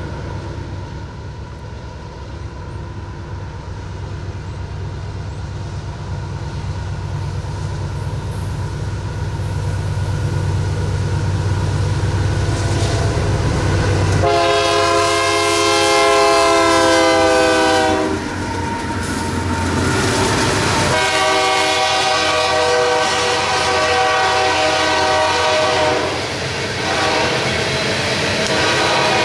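BNSF diesel freight locomotives approach with a low engine rumble that grows steadily louder, then sound their air horn: a long blast about halfway through. After a short break the horn sounds again at a lower pitch as the locomotives pass and move away toward the crossing, and the freight cars roll by.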